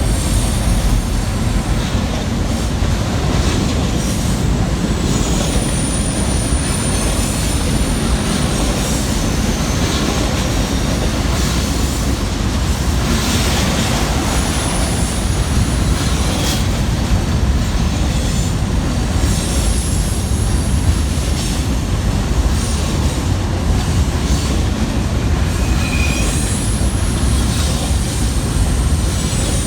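Freight train rolling slowly past: a steady, loud rumble of railcar wheels on the rails, with thin high-pitched wheel squeals coming and going.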